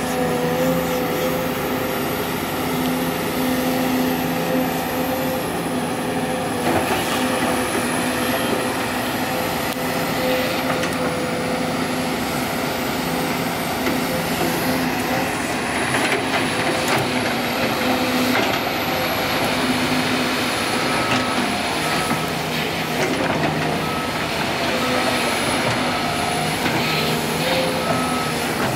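Heavy diesel engines of an excavator and dump trucks running steadily, their hum rising and falling with the work. In the last third a reversing alarm beeps in short, evenly spaced pips.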